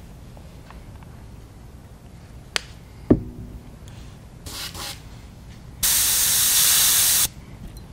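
Airbrush spraying pearlized copper paint: a short puff of hiss, then a steady hiss of about a second and a half. Before it come a couple of sharp clicks and a knock.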